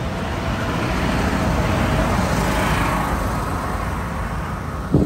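Large farm tractor's diesel engine running as it drives past close by, pulling a trailer. The sound swells to a peak about halfway through and then fades.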